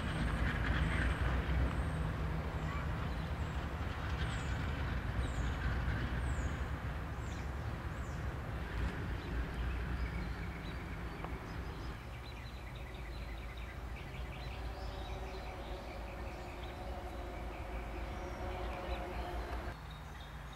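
Norfolk Southern diesel locomotives running light at low speed, a steady low engine rumble as the power moves back to couple onto its train on the siding; the rumble eases off part-way through and drops away just before the end.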